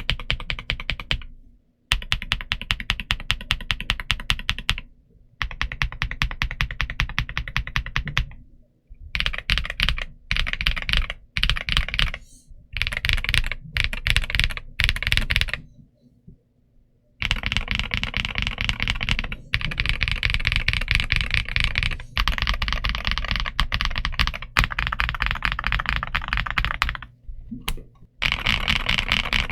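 Typing on a Redragon K709 Pro 65% mechanical keyboard: fast runs of clacking keystrokes, broken by short pauses, the longest about halfway through.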